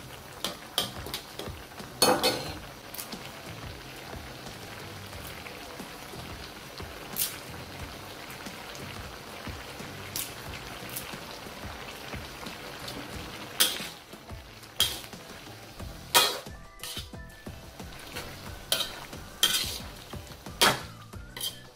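A metal ladle scraping and clinking against an aluminium wok as a pan of fermented fish and vegetables is stirred, over the steady sizzle of the mixture heating toward the boil. The clatter comes in scattered strokes, loudest about two seconds in and again through the last third.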